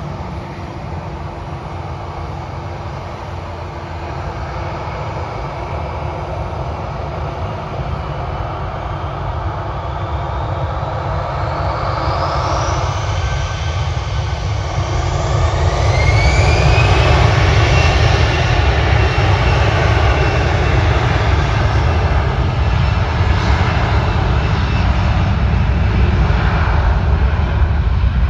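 An Airbus A319's twin CFM56 turbofan engines spool up to takeoff thrust for the takeoff roll. From about ten seconds in, whines climb in pitch over several seconds while the low rumble grows louder. The engines then hold steady at full power.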